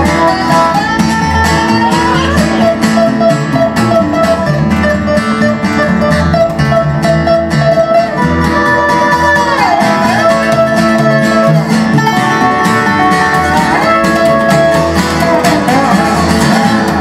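Instrumental country band passage: a lap-style resonator guitar plays sliding melody lines, its notes gliding up and down, over a strummed acoustic guitar and a plucked upright double bass.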